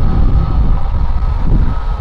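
CFM LEAP-1B turbofan engines of a Boeing 737 MAX 8 running as the jet rolls slowly on the runway: a steady engine whine over a heavy low rumble, with wind buffeting the microphone.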